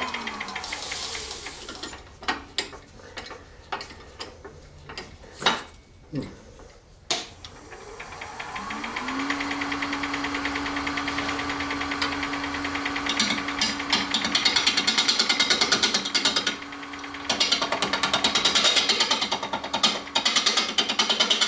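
Wood lathe motor winding down to a stop, then a few knocks and clicks while it stands still. The lathe spins back up about nine seconds in and hums steadily, and from about thirteen seconds a gouge cuts the spinning resin-and-burl orb with a loud, fast rhythmic chatter that breaks off briefly near the end.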